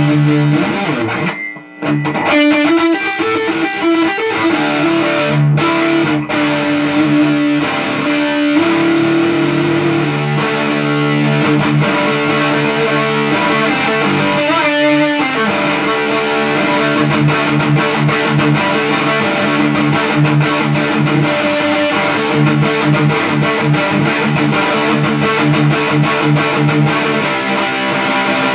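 Distorted electric guitar riffs played through an Orange amp: heavy chords, with a brief stop about a second and a half in and short breaks around five and fifteen seconds in.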